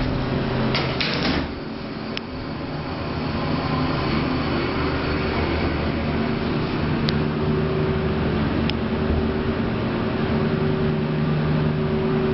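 Elevator doors sliding shut about a second in, then the elevator car running with a steady mechanical hum as it climbs.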